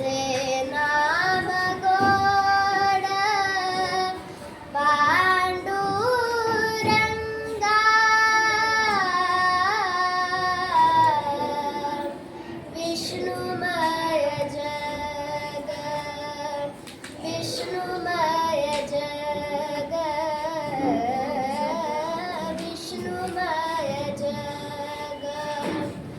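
A child singing a Marathi devotional abhang solo, drawing out long, held notes with gliding ornaments between short breaks.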